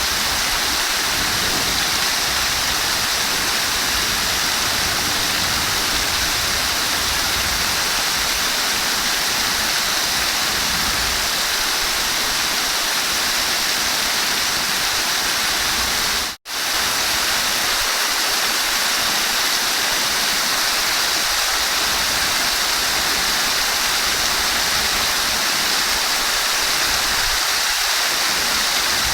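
Flowing water rushing steadily, a dense even hiss with no separate splashes; it cuts out for an instant about halfway through.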